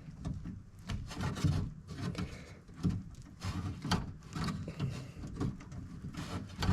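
Irregular rubbing, scraping and small clicks as a wiring connector at a power window motor is worked back and forth by hand inside a car door to unhook it.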